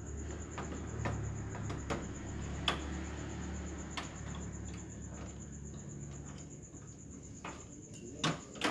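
Young tabby cat eating crumbly food off a plastic lid: irregular small clicks and crunches of chewing and of its mouth on the lid, with two louder clicks near the end.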